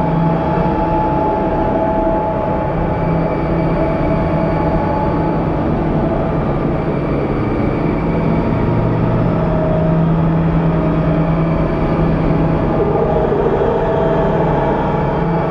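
Experimental drone-noise music: a loud, steady wall of rumbling noise with a few long held tones sitting over it, shifting slowly.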